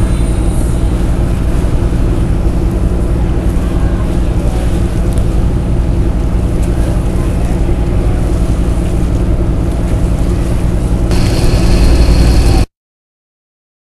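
Ferry engine running with a steady low hum. About eleven seconds in the sound turns louder with a high whine, then cuts off abruptly.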